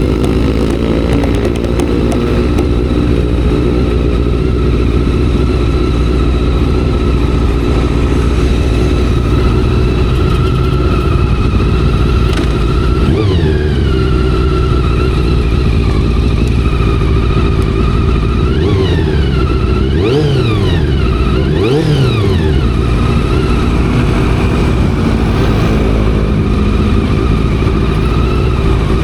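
Honda CBR400RR's carbureted inline-four engine under way, holding a steady note most of the time. Partway through it revs up and drops once, then gives several quick revs rising and falling in a row.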